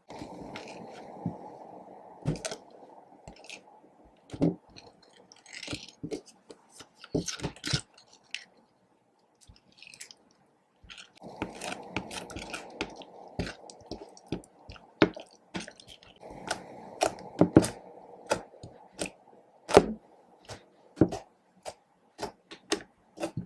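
Slime being handled and mixed: irregular sharp sticky clicks, pops and crunches, some loud, with a quieter stretch partway through.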